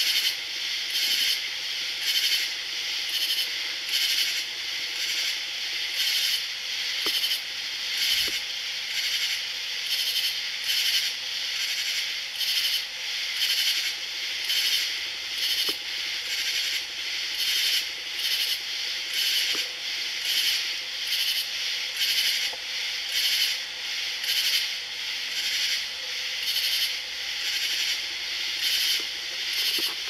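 Night chorus of singing insects, which the uploader calls cicadas: many high, rasping calls pulsing in a steady rhythm without a break.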